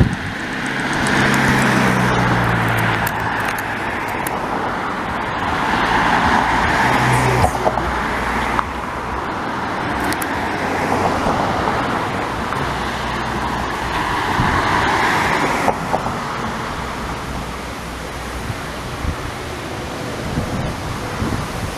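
Wide-body twin-jet airliner (a Boeing 777 or 787) flying past low, its jet roar swelling and fading, with a low engine hum that drops slightly in pitch early on. Gusty wind on the microphone.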